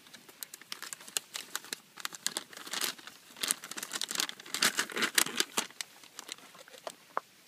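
Plastic bag of an MRE flameless ration heater crinkling and rustling as it is handled and opened by hand, the crinkling densest and loudest in the middle.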